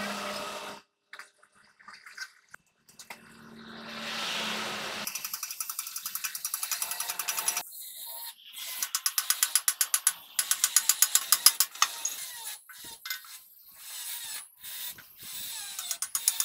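Hand ratchet wrench clicking in quick, even runs as it turns bolts on a truck steering knuckle. A few seconds of rushing noise come before the clicking starts.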